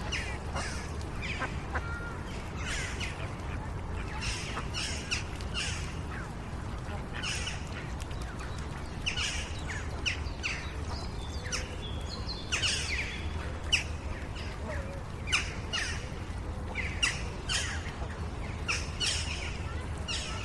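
Outdoor ambience of birds chirping, with many short, quick calls throughout, over a steady low background rumble and children's voices faint in the distance.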